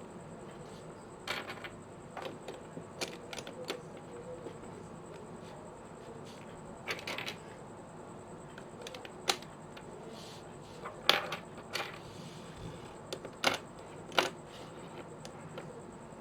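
Hard plastic pieces of a disassembled 5x5 speed cube clicking and tapping as they are handled and pressed into place. Irregular sharp clicks, a few louder ones in the second half.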